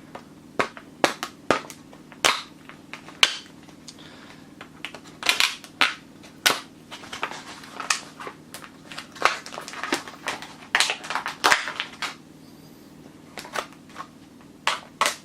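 Hard plastic food packaging crackling and snapping in irregular sharp clicks as it is cut and pulled open with a blunt knife.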